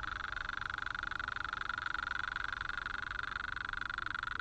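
A steady, high-pitched buzz with a fast, even pulse, unchanging throughout.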